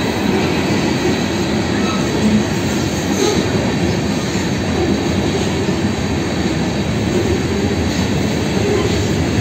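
Freight train tank cars rolling past at close range: a steady rumble and clatter of steel wheels on the rails.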